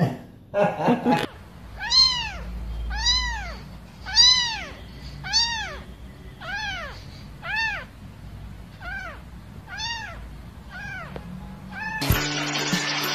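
A kitten meowing over and over, about one high meow a second, nine or so in a row, each rising then falling in pitch; the later meows are fainter. Music comes in near the end.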